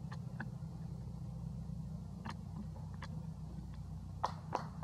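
A steady low engine-like hum, with a handful of short sharp snaps and rustles, the loudest two near the end, as monkeys clamber through leafy branches.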